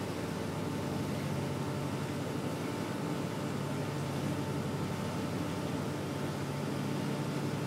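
Towboat's diesel engines running steadily under way, a constant drone with a steady hum, heard from inside the wheelhouse.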